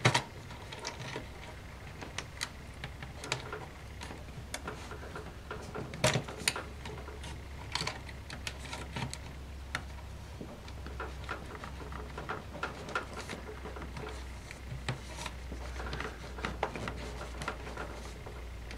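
Small, irregular clicks and light scrapes of a laptop's internal cable connectors and their plastic latches being unclipped by hand, over a low steady hum.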